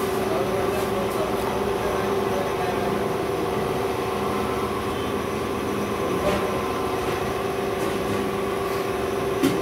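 Steady motor hum with a constant pitched drone, unchanging throughout. A few faint wet squishes as bare hands knead raw chicken into a thick yogurt marinade.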